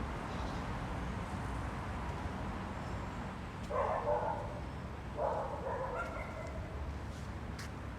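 Two short animal calls, about a second and a half apart, over a steady low rumble.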